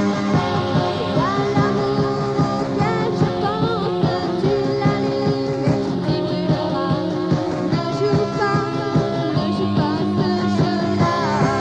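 Rock song recording: electric guitar with bass and drums at a steady beat, a melodic line bending between notes above the band.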